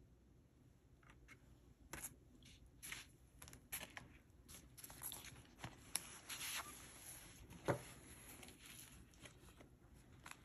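Notebooks and a clear plastic notebook cover being handled: quiet paper and plastic rustles with small clicks, and one louder soft knock about three-quarters of the way through.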